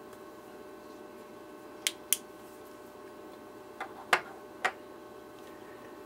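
A few sharp, short clicks over a faint steady hum: two close together about two seconds in, then three more around the four-second mark.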